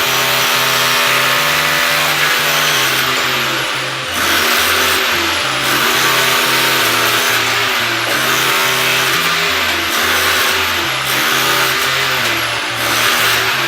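Electronic music: a synth bass line steps back and forth between two low notes in a regular rhythm, under sustained chords, with repeated falling sweeps up high.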